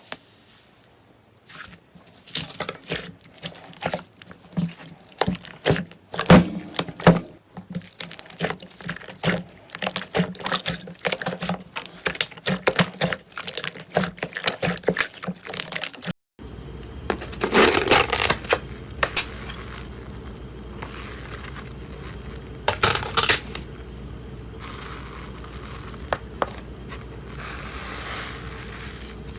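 Slime being squeezed and poked by hand, making rapid crackling and popping clicks. About 16 s in, the sound cuts to another clip of slime being handled, with a steady hiss and a few louder squelches.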